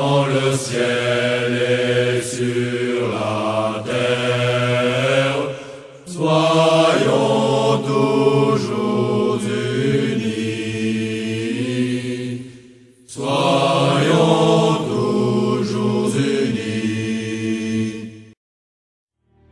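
Slow chanted vocal music: three long, sustained phrases of about six seconds each over a low held note. The chanting stops about a second before the end.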